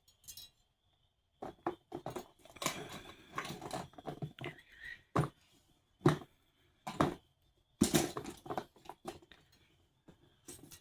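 Hands rummaging through a box of small toys: irregular clicks, knocks and clatter as the pieces are moved about and picked up, in several short clusters with quiet gaps between.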